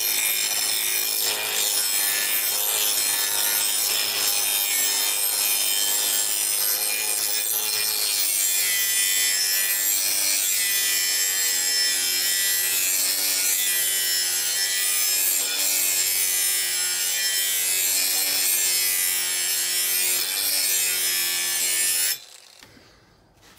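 Angle grinder grinding the edge of a rusty scrap-steel plate to shape it into a splitting blade: a loud, steady grinding hiss with a faint whine that wavers as the disc is pressed against the metal. It cuts off suddenly near the end.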